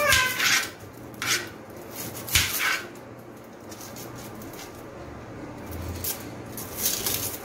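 Kitchen knife and fingers peeling onion and garlic skins over a plastic cutting board: a few short, dry scraping and crackling sounds and one sharp tap a little over two seconds in. A brief high, falling squeal-like tone at the very start.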